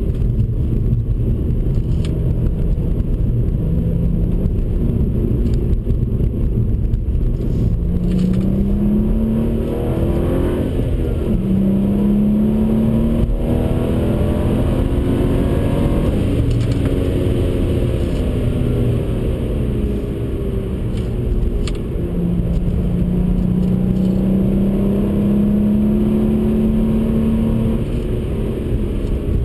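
BMW 135i's turbocharged 3.0-litre N55 inline-six, heard from inside the cabin under hard driving. The engine note climbs, drops back and climbs again several times, with a long, slow climb near the end, over a constant low road and tyre rumble.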